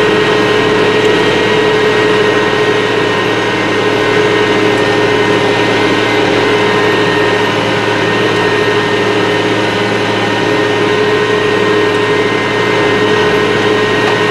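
IH 3788 2+2 tractor's six-cylinder diesel engine running steadily under load while pulling a chisel plow, heard from inside the cab. A constant, even drone with a steady hum in it, and no change in engine speed.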